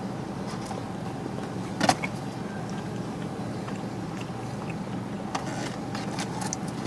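Steady low hum inside a car with the engine running. One sharp click comes about two seconds in, and a few faint clicks follow later.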